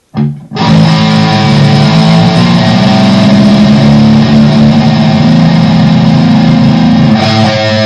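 Guitar strummed with a feather as the pick: a loud chord rings from about half a second in, held steadily, and shifts to another chord near the end.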